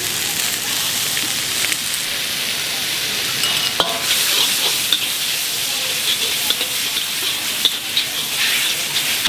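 Noodles sizzling as they are stir-fried in a hot wok over a charcoal fire: a steady, dense hiss. From about three and a half seconds in come sharp clinks and scrapes of a metal utensil against the wok.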